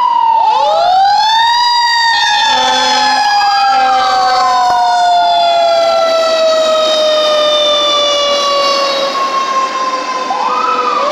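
Fire engine's sirens wailing as it responds to a call: one siren winds up about half a second in, then slowly falls in pitch for about seven seconds, while another wail rises and falls over it. Two short, low horn blasts sound about two and a half and three and a half seconds in.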